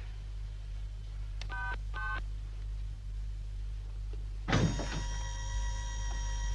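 Two short electronic beeps from a wall keypad as its buttons are pressed, about half a second apart. About four and a half seconds in, a sudden whoosh turns into a steady electronic hum of several high tones as the door mechanism starts. A low hum runs underneath.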